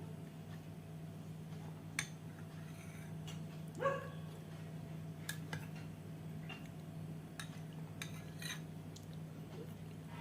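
Spoon and dishes clinking a few times during a meal, with a dog giving one short yip or bark about four seconds in, over a steady low hum.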